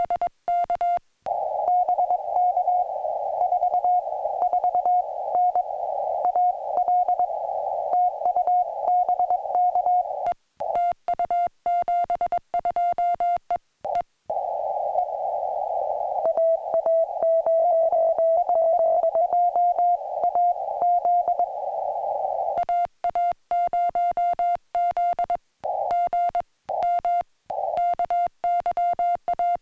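Morse code on a portable ham radio. A clean, steady beep is keyed in dots and dashes as the operator sends. Twice it gives way to stretches of narrow, hissy receiver noise in which another station's Morse reply beeps at a slightly lower pitch.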